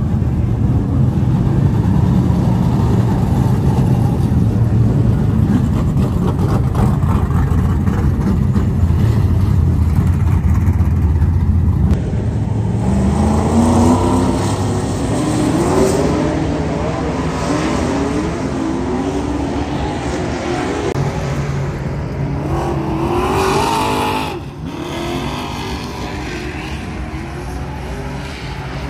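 Dirt-track stock car engines, first a loud steady rumble as the cars roll out, then revving and accelerating on the track with the pitch rising and falling as they pass. About three-quarters through the sound drops to a quieter, steady engine rumble.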